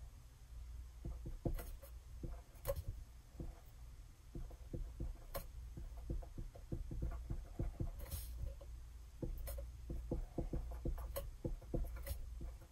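A wet-erase marker writing on a desktop whiteboard: irregular light taps and short strokes of the tip on the board, over a faint low hum.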